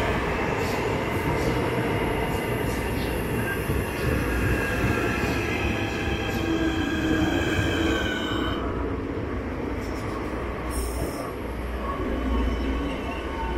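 Class 465 Networker electric multiple unit braking into a platform: its traction motors whine in several tones that fall in pitch and die away about eight seconds in as it comes to a stop. A low rumble remains, with a short hiss near the end.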